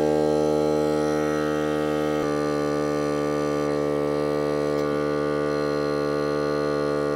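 Fanttik X9 Ultra cordless tire inflator's compressor running steadily with a buzzing hum while inflating a truck tire, its tone shifting slightly about two seconds in.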